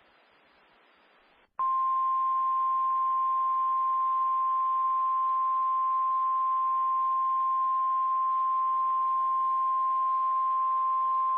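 NOAA Weather Radio 1050 Hz warning alarm tone: a single steady high beep that starts about a second and a half in and holds for about ten seconds over faint radio hiss. The tone signals that a weather warning broadcast follows.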